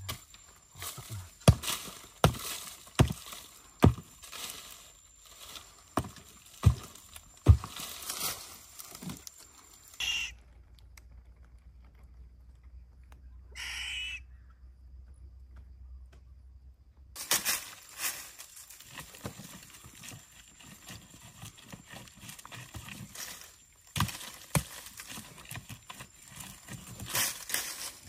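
A short-handled digging tool strikes and scrapes dry earth in irregular sharp blows, often about a second apart. For several seconds in the middle the blows stop, leaving a low hum and two short high calls.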